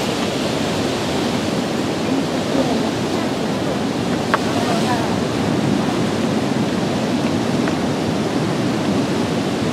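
Ocean surf breaking on a rocky shore, a steady wash of noise, with some wind on the microphone.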